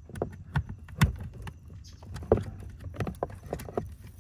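Plastic wiring-harness connector and its braided loom knocking and clicking against the fuse box as the connector is worked up into its socket under the dash: irregular light clicks and taps, the sharpest about a second in.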